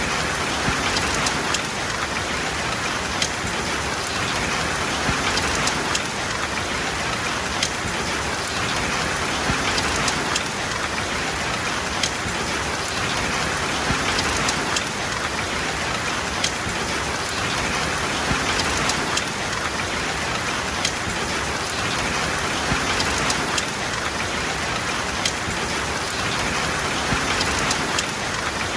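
Heavy rain falling steadily, a dense hiss with frequent sharp drop ticks on a hard surface.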